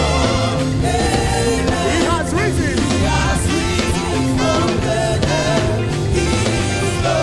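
Live gospel praise-and-worship music: a band with a steady bass line and drums, under a wavering sung melody.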